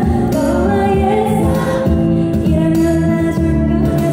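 A woman singing a soft Korean pop love song live into a microphone, over steady instrumental accompaniment.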